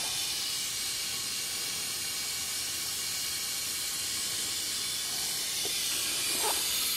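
Steady hiss of hot water spraying continuously under pressure from a carpet-cleaning wand into a plastic bucket, with a few faint ticks near the end.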